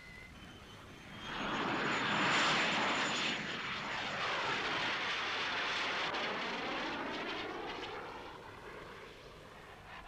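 Aircraft flying past. The noise swells about a second in, is loudest around two to three seconds, and fades away over the last few seconds.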